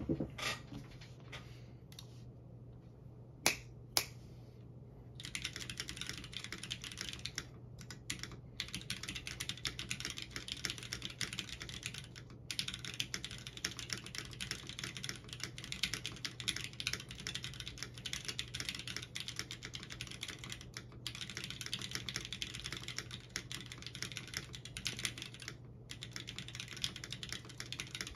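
Typing on a Mercutio 40% mechanical keyboard with stem-lubed Gateron Yellow KS-3 linear switches and blank ABS keycaps, in a two-plate FR4 sandwich case with no foam. A few single clicks in the first seconds, then steady fast typing from about five seconds in, with a handful of brief pauses.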